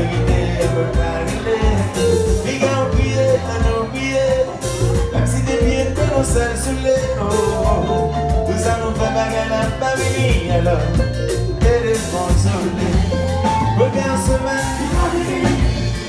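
A live kompa band plays with a lead vocal sung into a microphone. Drum kit, keyboard, acoustic guitar and electric guitar keep a steady groove under the singing.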